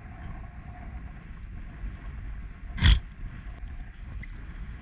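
Strong wind buffeting the microphone as a steady low rumble, with a single sharp thump a little under three seconds in.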